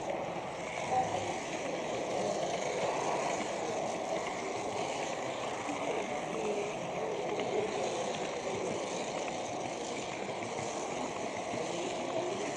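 Steady rolling rumble of an H0 model train running on Märklin C-track, heard through a small camera riding on the train, with a murmur of voices behind it.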